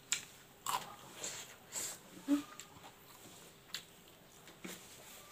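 Close-miked eating sounds: a mouthful of rice and smoked pork being chewed, with a string of short wet mouth clicks and smacks, and fingers mixing rice on the plate.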